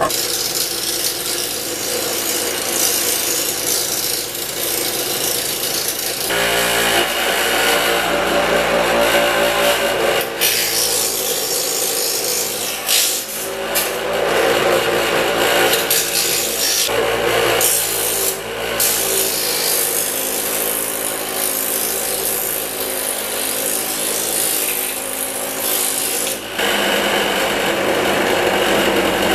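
Power grinder running and grinding down a homemade epoxy-and-metal latch piece, a steady harsh grinding noise. The motor's hum comes in deeper and heavier from about six seconds in and eases a few seconds before the end, as the piece is pressed harder against the wheel.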